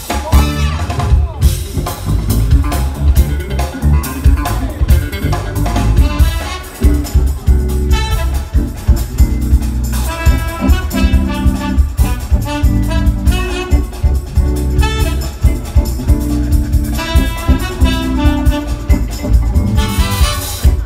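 Live jazz-fusion band playing: a horn section of trumpet and saxophone carrying melodic lines over drum kit, percussion, electric guitars and keyboards, with a steady driving drum beat.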